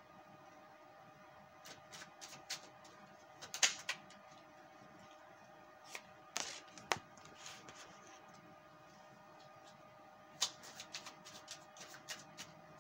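Tarot cards being shuffled by hand: quick papery snaps and flicks that come in three spells, loudest a little before 4 seconds and around 7 seconds. A faint steady hum runs underneath.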